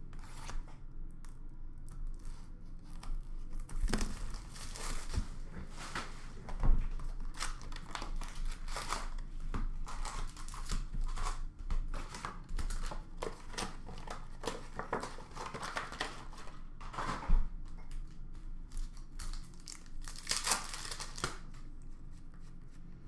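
Hockey card packs torn open by hand, the wrappers tearing and crinkling in irregular bursts, with the rustle of cards being handled. There are a couple of sharper snaps, about a third of the way in and again past the middle.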